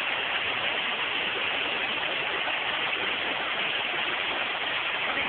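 Waterfall: a steady rush of water pouring down a rock face.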